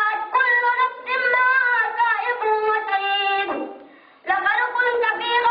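A high voice singing long, wavering, drawn-out phrases. It pauses for about half a second near the end, then starts again.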